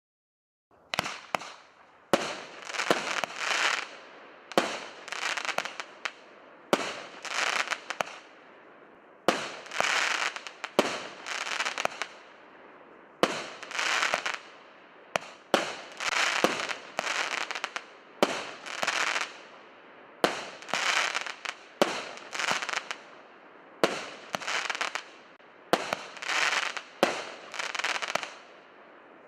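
A 36-shot, 1-inch consumer firework cake (Russian Pyrotechnics 'Svaty') firing: a shot goes off every second or two, each followed by a burst of crackling stars. The volley starts about a second in.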